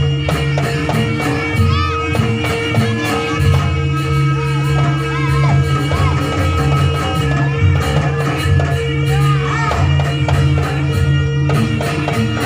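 Live Javanese gamelan accompaniment for a jaranan-style dance: hand drums and gong-chime instruments playing a steady, driving beat, with a voice rising and falling over it and some crowd noise.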